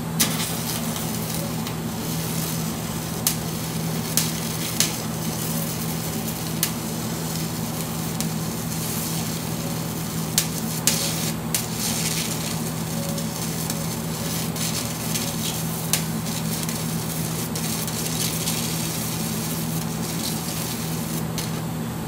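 Stick welding of brass with a copper-alloy electrode at about 50 amps: the arc crackles and sizzles steadily, with scattered sharp pops, while it fills a worn, egg-shaped hole in a brass bearing.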